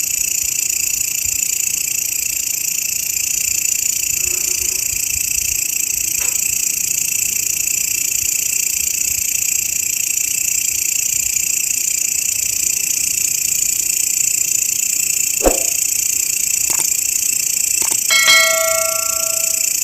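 Grasshoppers calling in a continuous, high-pitched buzzing chorus. Near the end come a few sharp clicks and a short ringing, bell-like tone.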